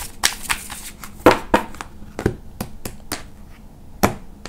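Oracle cards being shuffled and handled by hand: an irregular scatter of sharp card snaps and taps.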